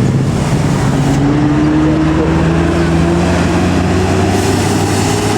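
A tour bus's diesel engine running hard under load on an uphill climb. From about a second in, its pitch rises slowly and steadily as it pulls up the grade.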